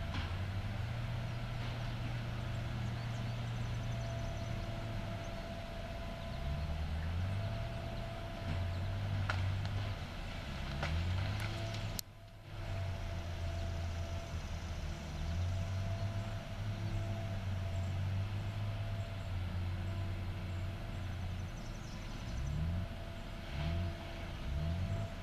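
Caterpillar 573C tracked feller buncher's diesel engine running under changing load, its pitch repeatedly rising and falling, with a steady whine over it. The sound drops out briefly about halfway through.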